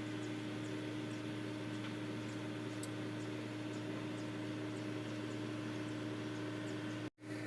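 Steady low machine hum with an even tone over a faint hiss, and a few faint light ticks; it breaks off to silence for an instant near the end.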